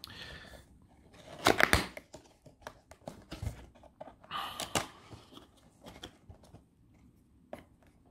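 Cardboard box being opened by hand: card rustling and scraping, with sharp clicks and tearing as the flaps and tabs pull free, loudest about one and a half seconds in and again around four and a half seconds.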